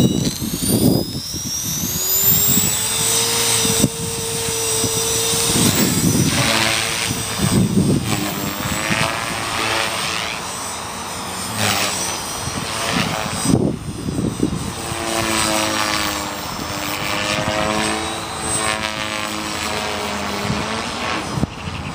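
A 450-size electric RC helicopter (450 Pro) flying, its motor and rotor whine rising over the first couple of seconds and then shifting in pitch as it manoeuvres. Gusty wind buffets the microphone.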